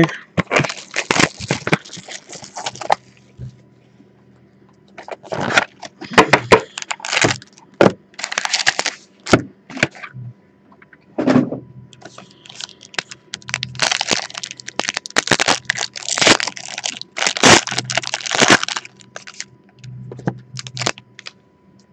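Plastic shrink wrap torn off a trading card box and foil card packs ripped open: crinkling and crackling in repeated bursts, with short pauses between them.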